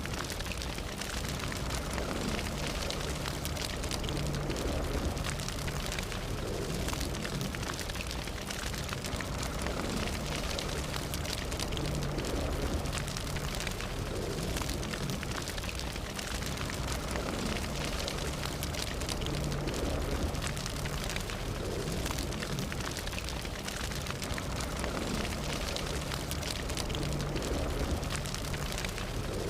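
Fire burning steadily, with a constant low rumble and dense, fine crackling throughout.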